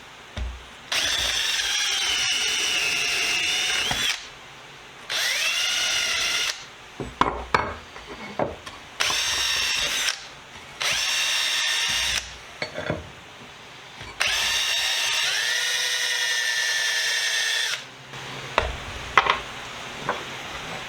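Handheld power drill running in about five bursts of one to three and a half seconds, its motor pitch sagging as the tool is loaded, with light knocks and clicks of handling in the pauses between bursts.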